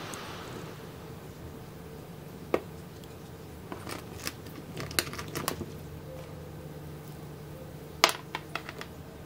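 Light plastic clicks and taps from handling a 3D-printed RC car chassis and its wiring. There are scattered clicks, a cluster in the middle, and a sharper click about eight seconds in followed by a few lighter ones.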